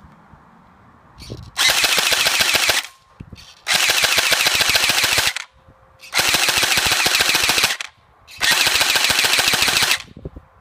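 Electric airsoft rifle firing on full auto in four bursts of about a second and a half each, separated by short pauses: a rapid, even rattle from the gearbox cycling.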